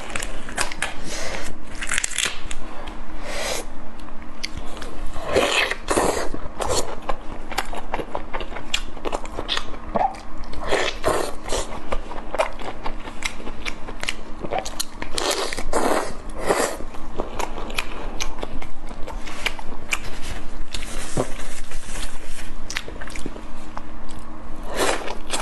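Close-miked chewing and biting of large prawn meat: many sharp, irregular mouth clicks and wet chewing noises, loud against the microphone.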